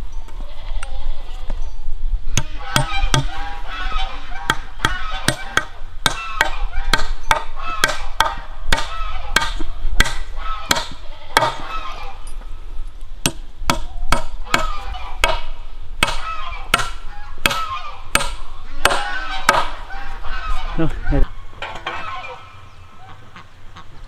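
Steel hammer driving nails through a log crossbar into a wooden post: a long run of sharp strikes, somewhat under two a second, starting about two seconds in and stopping near the end. Animal calls sound behind the strikes.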